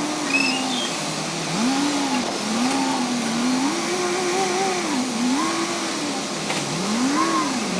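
Diesel engine of a heavy construction machine working, its pitch rising and falling over and over, about once a second, as its load changes.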